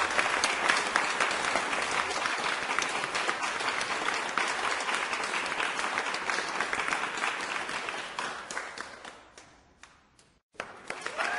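Crowd applause, many hands clapping steadily, fading out about eight seconds in to a brief moment of silence; a fresh round of applause starts up just before the end.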